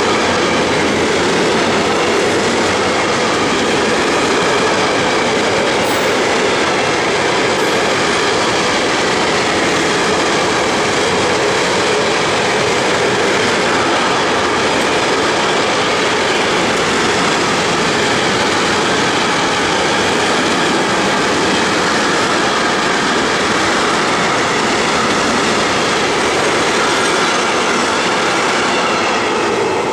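Freight train's container and tank wagons rolling past close by: a loud, steady wheel-on-rail noise that begins to fade right at the end as the last wagon goes by.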